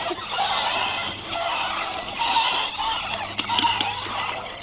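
Plastic wheels of ride-on toy cars rolling and scraping over pavement, a continuous rough rumble, with a few short honking calls from farm birds.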